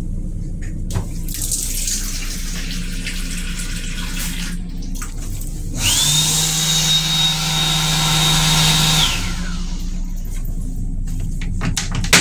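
An M7 railcar's restroom hand dryer blowing for about three seconds. Then, about six seconds in, the stainless steel toilet flushes for about three seconds: a loud rushing with a high whine that rises at the start and falls away at the end.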